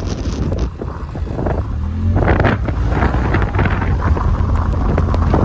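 Honda Talon 1000X-4 side-by-side's engine running under way, getting louder and revving up about two seconds in, with wind buffeting the microphone.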